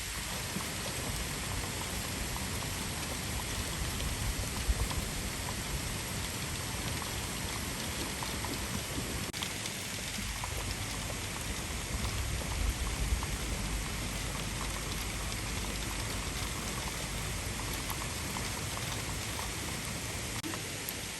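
Heavy rain falling steadily in an intense downpour, a dense even hiss of drops hitting surfaces, with a couple of brief low bumps about five and thirteen seconds in.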